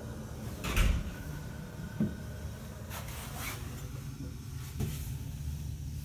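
A sharp clunk about a second in, then a lighter click and a couple of knocks over the next few seconds, over a steady low hum.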